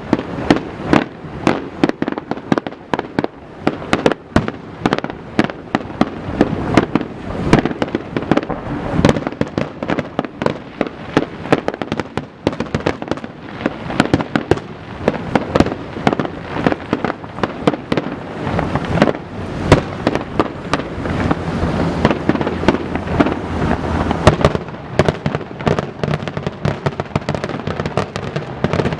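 Aerial fireworks display going off in a dense, continuous barrage: many booms and crackling bursts a second, overlapping into a steady rumble.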